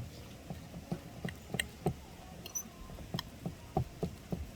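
A utensil knocking and scraping against a bowl as oats, ground nuts and mashed banana are stirred together: light irregular taps, a few a second.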